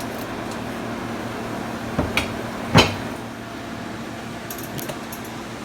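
Parts being handled while working on a generator's fuel system: three sharp knocks about two to three seconds in, the last the loudest, then a few faint clicks near the end, over a steady low hum.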